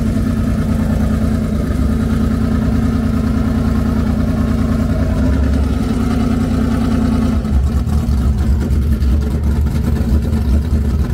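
Drag race car engines idling loudly with a pulsing, lumpy rumble. About seven and a half seconds in, the higher note drops out and a deeper rumble takes over.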